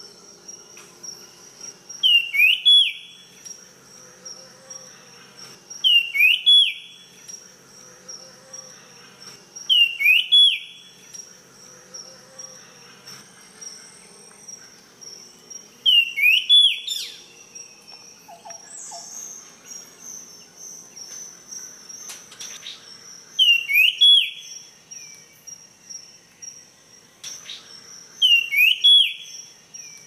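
A small songbird, the one known locally as tledekan, singing a short phrase of quick whistled notes, repeated six times at intervals of about four to seven seconds, over a steady high insect trill.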